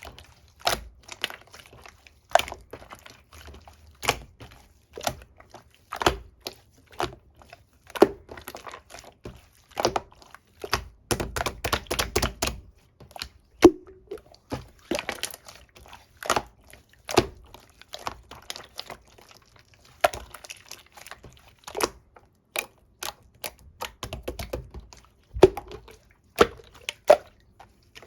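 Soft, jiggly pudding-type slime being squeezed and poked by hand, giving irregular sticky clicks and pops about once a second, with a denser run of squishing around the middle.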